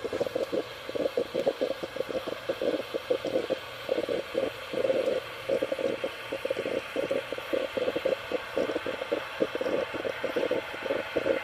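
Espresso maker sputtering and gurgling as steam pushes coffee through into its glass carafe, in rapid, irregular bubbling pops.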